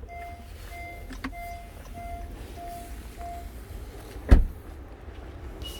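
A car's turn-signal indicator beeping six times, one short steady beep about every 0.6 s, then stopping; a single loud thump about four seconds in, over a steady low rumble.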